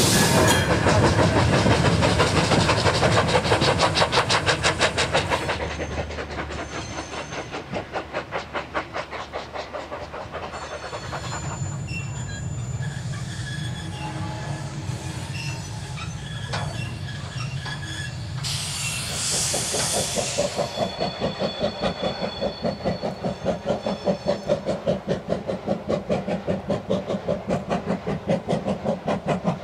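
Steam-hauled goods train on an industrial railway: hopper wagons rumble and clatter past close by, then a tank locomotive works its train with a rapid, regular exhaust beat. A brief loud hiss of steam comes about two-thirds of the way through.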